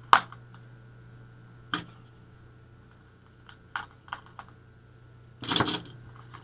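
Hands working tape onto a foam RC flying wing: scattered sharp clicks and light taps, the loudest right at the start, with a brief scuffing rustle about five and a half seconds in. A steady low hum runs underneath.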